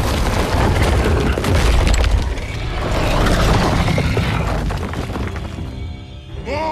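Film sound effects of massive rock breaking apart: a deep, continuous rumbling and booming with crackling debris, under orchestral music. The rumble eases near the end.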